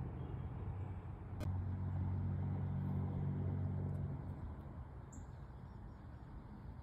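Low rumble of a motor vehicle, swelling for a few seconds in the middle and then fading away, with a single click a little over a second in and a faint bird chirp later on.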